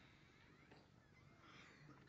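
Near silence: faint room tone of a crowded hall, with a slight indistinct murmur.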